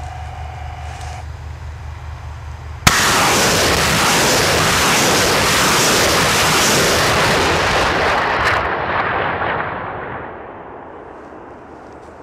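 M-92 Vulkan multiple rocket launcher firing a salvo of 128 mm rockets. A low steady hum, then about three seconds in a sudden loud blast of rocket motors that runs on as one continuous roar for about five seconds before fading away.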